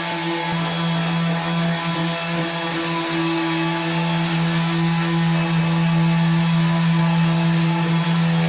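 Electric sander running steadily on dried drywall joint compound, a loud, even motor hum with one steady pitch.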